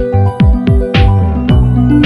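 Electronic background music with a steady beat: a deep kick drum that drops in pitch, sharp noisy hits and sustained synth tones.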